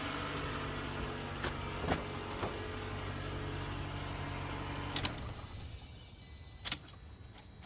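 A steady motor hum with a few light clicks; the hum cuts off about five seconds in, followed by a couple of sharper clicks.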